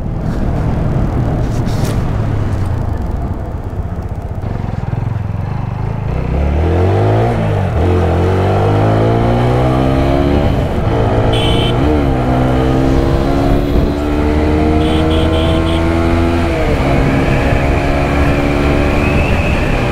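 TVS Apache RTR 160 4V's single-cylinder engine pulling the motorcycle along, over the rush of wind on a helmet-mounted camera. From about six seconds in it accelerates: the engine note climbs, drops back at each upshift and climbs again, several times.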